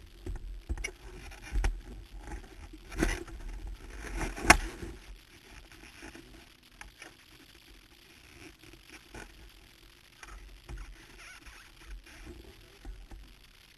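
A rider shifting on a parked motorcycle, his leather suit rustling and scraping against the bike's tail bodywork, with scattered clicks and several knocks, the loudest about three and four and a half seconds in, then softer rustling.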